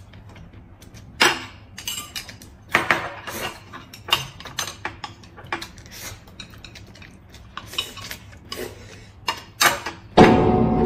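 Close-miked eating sounds: noodles slurped and chewed, with chopsticks clicking and scraping against plates and a glass mug in short, irregular strokes. A loud burst of music cuts in near the end.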